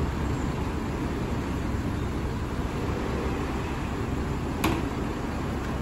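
Steady low rumble of a city bus idling at the stop. About four and a half seconds in comes one sharp clack as the driver handles the bus's fold-out wheelchair ramp.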